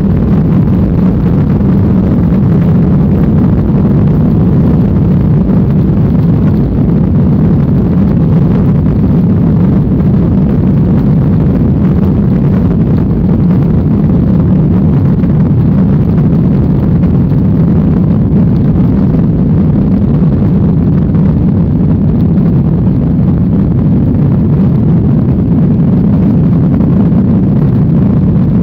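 Jet airliner on its takeoff roll, heard inside the cabin: the engines at takeoff power make a loud, steady rumble.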